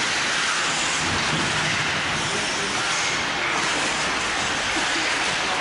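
Steady hiss of ice hockey play in an indoor rink: skate blades scraping the ice over the arena's background noise, with no sharp hits standing out.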